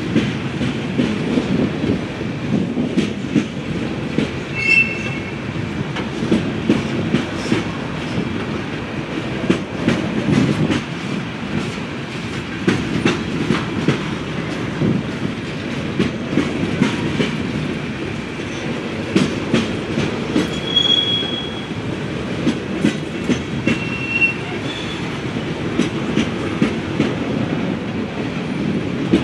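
CSX freight train's hopper cars rolling past at trackside, with a steady rumble and the clickety-clack of wheels over rail joints. Short high wheel squeals come about five seconds in and twice more near the end.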